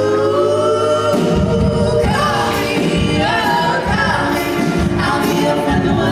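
Women singing in close harmony, several voices holding a chord and then moving together over a steady beat.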